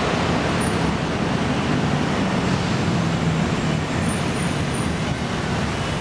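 Steady road traffic noise, an even rush with no distinct events.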